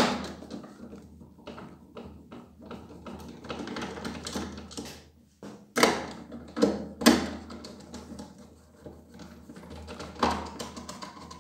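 Irregular plastic clicks and knocks as the hard plastic housing of a Nilfisk E 140.3 pressure washer is handled and its black foot piece is worked loose, with several sharper knocks in the second half. A low steady hum runs underneath.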